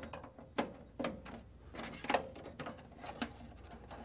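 Irregular clicks and taps of a SATA data cable being handled and plugged into its connector inside a desktop PC tower's metal chassis.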